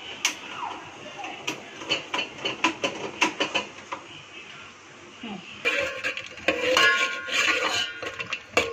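Steel spoon clinking and scraping against an aluminium pot as cashews are stirred in hot ghee and oil: many short sharp clicks, growing louder and busier about two-thirds of the way in.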